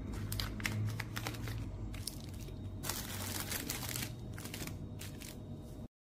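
Plastic packets crinkling and rustling as they are handled, with irregular crackles and a denser stretch about three seconds in, over a low steady hum. The sound cuts off suddenly near the end.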